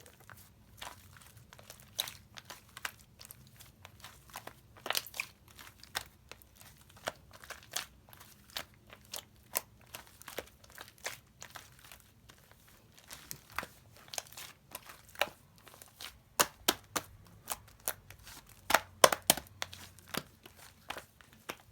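Slime being squished, pressed and stretched by hand, giving a run of irregular sharp clicks and crackling pops. The clicks come thicker and louder in the second half, loudest a little before the end.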